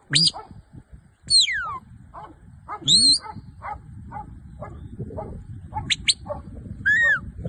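A working sheepdog barking repeatedly, about two barks a second, over a handler's shepherd whistle commands: high whistled notes that fall, rise and arch, including a long falling note and two short sharp blasts near the end.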